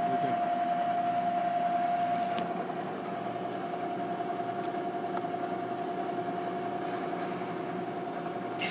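Bridgeport Explorer X-26 CNC mill spindle running steadily at 1200 RPM in the high range, quite quiet, with one even tone. Right at the end the pitch starts to climb as the spindle speed is raised.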